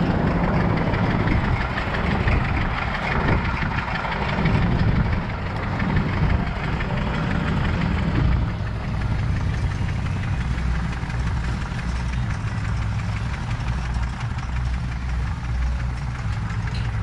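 An engine idling with a steady low beat, which stands out more after about halfway through as the background hiss thins.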